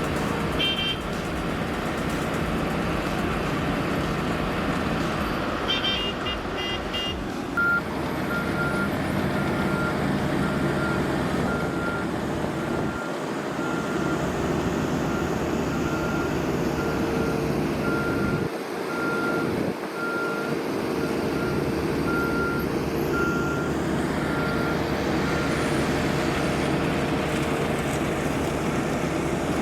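Diesel engines of heavy road-construction machinery running steadily, with a reversing alarm beeping at a steady pace, a little under a second apart, from about a quarter of the way in until near the end.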